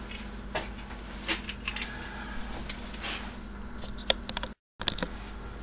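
Small metal hardware, the shoulder bolts and nuts for a breaker-panel generator interlock, clinking and tapping as they are handled: a string of light, irregular clicks over a low steady hum. The sound cuts out for a moment near the end.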